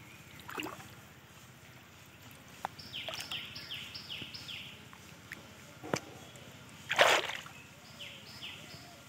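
Water sloshing and splashing as a hand reaches for a fish inside a bamboo fish trap in shallow pond water, with one loud splash about seven seconds in. A bird calls in the background: a quick run of five descending chirps about three seconds in, and three more near the end.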